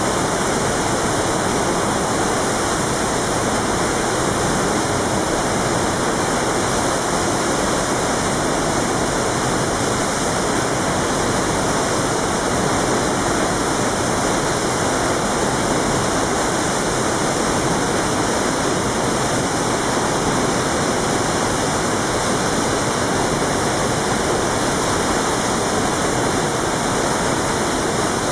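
Waterfall rushing: a loud, steady roar of falling water with no change.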